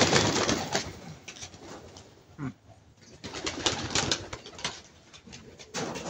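Domestic pigeons cooing with low falling calls, between short bursts of noise near the start and again in the middle.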